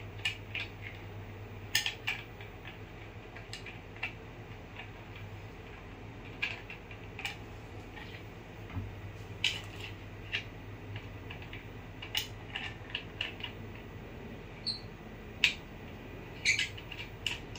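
Irregular sharp clicks and taps of metal and plastic parts of a boom-stand microscope's focus mount being handled and fitted together by hand, with one brief high squeak near the end, over a steady low hum.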